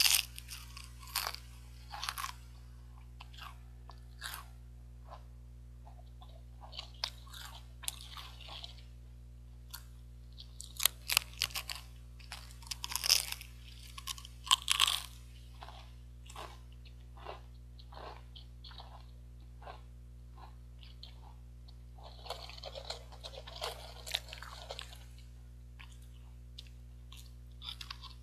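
Pringles potato crisps being bitten and chewed: sharp, crackly crunches in irregular clusters, with quieter stretches of chewing in between. The busiest clusters come about halfway through.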